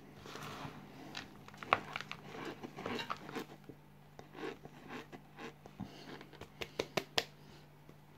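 Raw cornstarch being squeezed in the hands and chewed: soft crunching and crackling. Near the end comes a quick run of about five sharp slaps as floury hands are clapped together.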